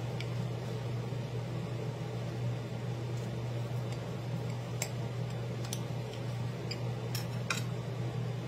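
A knife cutting through a crunchy, pan-browned flour-tortilla burrito on a plate, with a few sharp clicks in the second half, over the steady low hum of a room fan.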